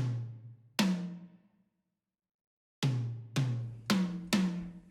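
Soundtrack cue of low pitched drum hits, each ringing and fading: two hits, a pause of about a second and a half, then five hits in quick succession.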